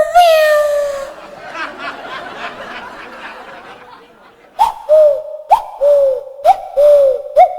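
Mouth-made sound effects: a held pitched tone that slides down and fades over the first second, then a quieter stretch of broken, chuckle-like sounds, then a run of short chirps, each starting with a click, about one a second.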